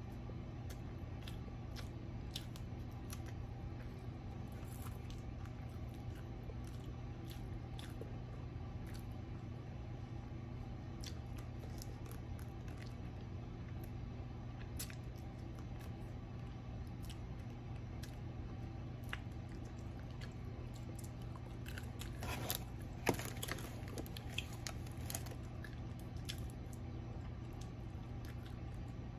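Close-up chewing and crunching of crisp fried food: breaded fried shrimp, chicken and fries. Scattered short crunches run over a steady low hum, with a louder flurry of crisp crunches and rustles about three-quarters of the way through.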